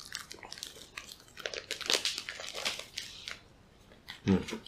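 Plastic wrapper of a string cheese pack crinkling and tearing as it is worked open, in irregular crackly bursts. A short voiced sound comes near the end.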